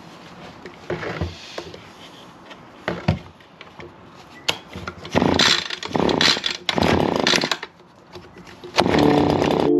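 Echo two-stroke handheld leaf blower being pull-started: a couple of small clicks at the controls, then about four hard, rasping pulls of the recoil starter, each lasting under a second.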